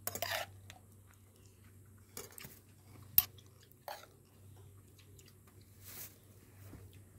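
A metal spoon stirring and scooping wet diced cucumber and tomato salad in a ceramic bowl: soft squelching of the juicy salad with a few light clicks of the spoon against the bowl, one sharper click a little after three seconds in.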